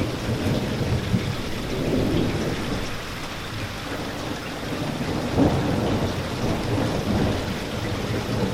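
Steady rain falling, with a low rumble of thunder under it that swells briefly about five seconds in.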